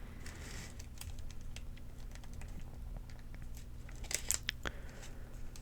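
A paper medication guide being handled: soft rustles and scattered light crinkles and ticks, with a short cluster of sharper crinkles about four seconds in.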